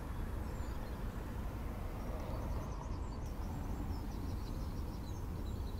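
Faint open-field ambience: a steady low rumble, with small birds chirping lightly through the middle.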